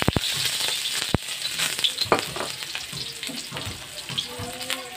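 Sliced red onion sizzling in hot cooking oil in a wok. A few sharp clicks come near the start, and the sizzle gradually eases.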